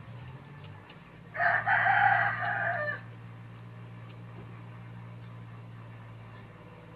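A rooster crowing once, a single loud call about a second and a half long, over a steady low hum.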